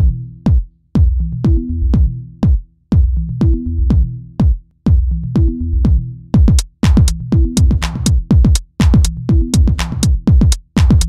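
Electronic background music with a drum-machine beat and a repeating bass line; busier high percussion joins a little past halfway.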